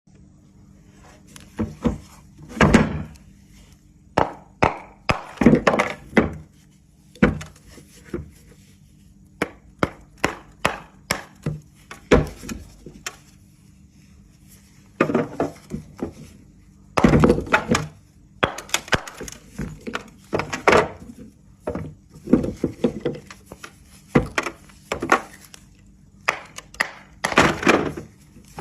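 Dry pressed Turkestan clay tiles crunching and snapping apart, a long irregular run of crisp cracks coming in clusters, some much louder than others.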